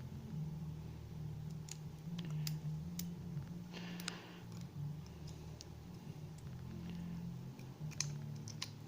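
Scattered light clicks and a brief scrape of small metal lock parts and tools being handled as a pin-tumbler lock is taken apart, over a steady low hum.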